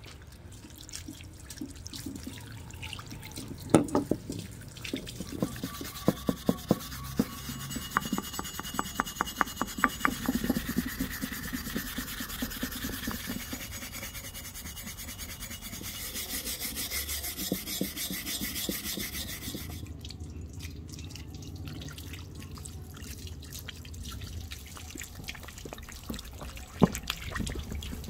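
Steel Pulaski axe head being scrubbed by hand on a wet plank and rinsed with water, cleaning off the rust loosened by electrolysis. A run of quick rasping strokes, then a stretch of steady hiss, with splashes and drips.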